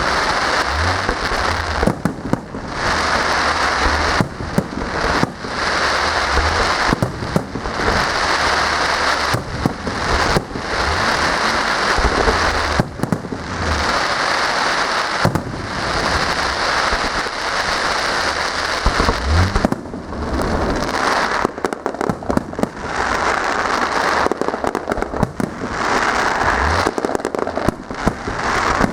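Fireworks display: continuous crackling and bangs of bursting shells with low thuds underneath, dipping briefly every few seconds.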